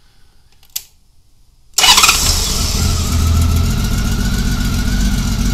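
A single click, then about two seconds in the Honda Valkyrie's flat-six engine comes in abruptly and runs at a steady idle while its six carburetors are being synchronised.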